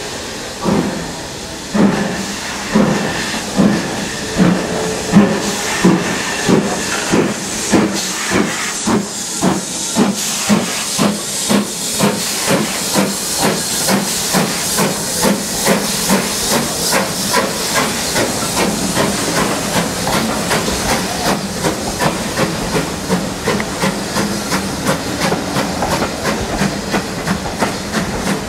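Steam locomotive working a train away from a standstill: exhaust chuffs that start about a second apart and quicken steadily to about three a second as it gathers speed, over a continuous hiss of steam.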